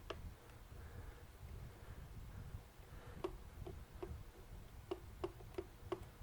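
Faint clicking of a screwdriver backing self-tapping screws out of a plastic multimeter case. There is one click at the start, then a run of about eight even ticks, roughly three a second, from about halfway through.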